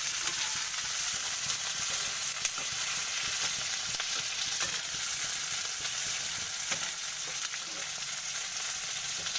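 Oil sizzling steadily in a pan as sliced capsicum (bell pepper) fries with onions and garlic: an even hiss with faint scattered crackles.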